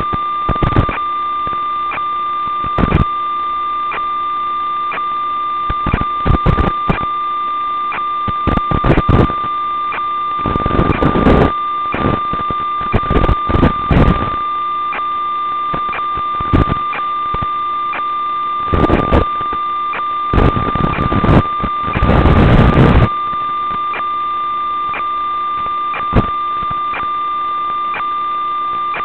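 Steady electronic buzz on the audio channel of an analog FPV video link. It is a constant tone with overtones that never changes pitch with throttle, broken about a dozen times by short rushes of static crackle, the longest about a second long near the end.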